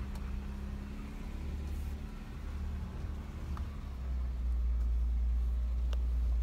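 Off-road 4x4's engine pulling slowly up a steep rocky climb, heard from inside the cab: a low, steady rumble that grows louder about four seconds in.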